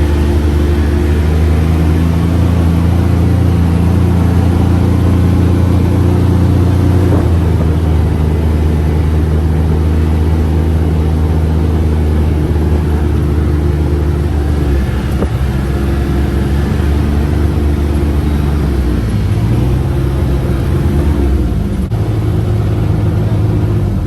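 UTV engine running steadily under way, with a constant drone that shifts in pitch a few seconds before the end.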